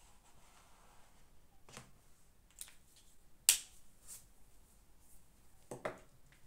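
A few short clicks and light knocks from small objects being handled at a desk, with one sharp, loud click about halfway through.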